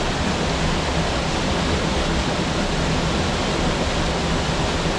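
Steady rush of falling water from a waterfall or cascade.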